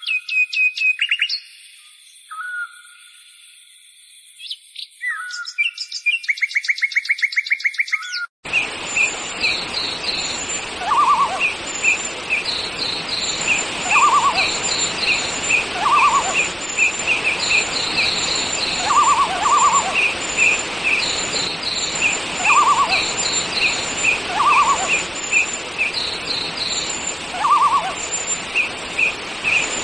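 Songbirds calling over a steady background hiss, with several calls repeating in a regular pattern, including a falling call about every two to three seconds. For the first eight seconds or so, clean whistled chirps and fast trills with no background noise come before a sudden cut into the bird chorus.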